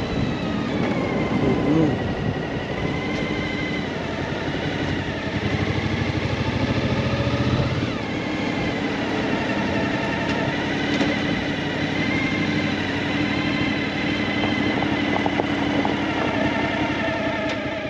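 Suzuki V-Strom adventure motorcycle underway, its engine running steadily with its pitch drifting gently up and down.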